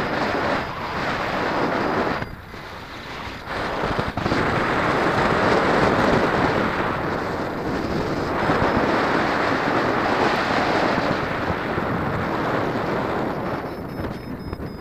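Airflow rushing over the microphone during paraglider flight: a loud, gusty wind noise that swells and eases, with a brief lull about two seconds in and another near the end.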